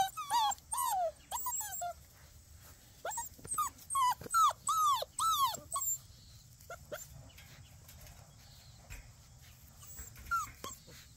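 Puppies whining: a string of short, high-pitched falling whimpers in the first two seconds and again from about three to six seconds in, then mostly quiet with a couple more near the end.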